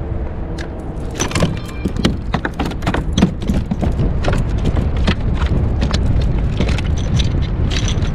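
Rapid, irregular clicking and knocking over a steady low rumble.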